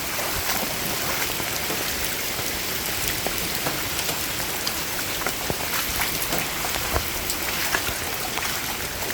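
Steady heavy rain falling, a dense even hiss with scattered sharper drops striking surfaces, from the outer bands of a hurricane.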